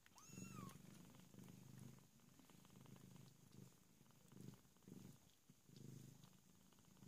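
Bengal cat purring faintly, in low pulses about a second long, with one short high kitten mew just after the start.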